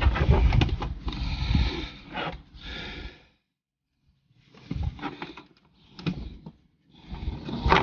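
Handling noise from plastic car interior trim being worked back into place: a dense run of clicks and rustles over a low rumble, which breaks off for about a second partway through and resumes in short bursts.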